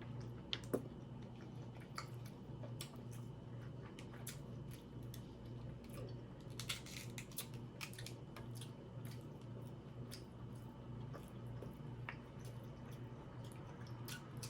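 Close-up eating sounds of a seafood boil meal: chewing with many small, scattered wet clicks and crackles, over a faint steady low hum.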